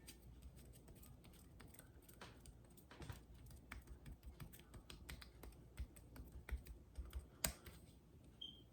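Faint, irregular soft clicks and taps of hands working during a neck massage, coming more often in the second half, with one sharper click a little over seven seconds in.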